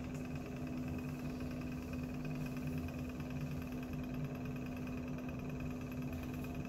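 Steady low mechanical hum from running lab equipment, holding one strong even tone with a lower rumble beneath it and never changing.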